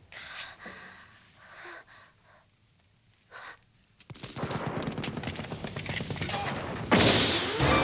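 A man's strained gasps and grunts as he struggles against his bonds, then from about four seconds in, a rapid burst of automatic gunfire, with a louder crash near the end.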